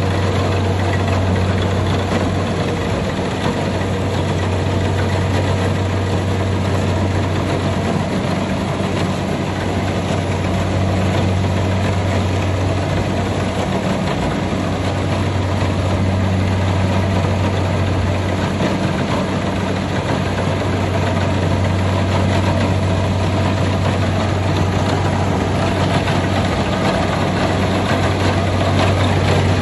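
Kubota rice combine harvester running steadily: a deep, even engine drone with a dense mechanical rattle over it.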